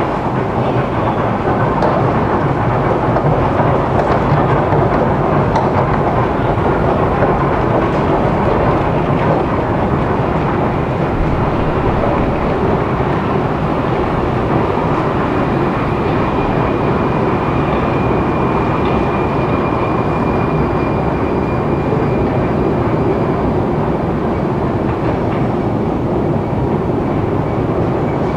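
Metro station escalator running: a steady mechanical rumble with clatter from the moving steps. A faint high whine comes in about halfway through.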